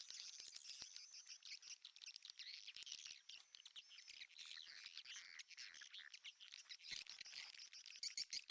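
Swiftlets twittering: a dense, continuous chatter of high chirps mixed with many quick clicks.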